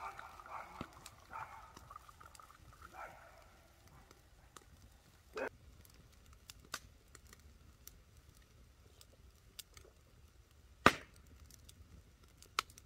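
Scattered sharp clicks and knocks, the loudest one about eleven seconds in, with faint voices in the first few seconds.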